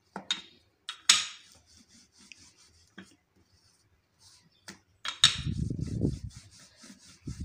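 Floured hands working a ball of paratha dough on a countertop: a few sharp taps and knocks, the loudest about a second in, then a low rubbing as the dough is pressed and turned, about five seconds in.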